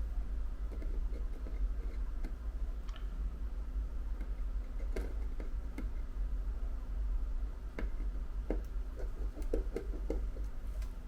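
Small, irregular clicks and ticks of a precision screwdriver and tweezers working the tiny tri-point screws out of an iPhone's internal plate, over a steady low hum.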